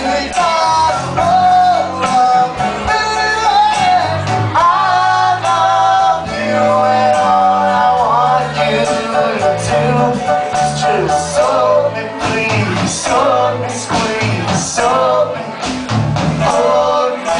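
Live rock band performing: singing over piano and drums, loud and continuous.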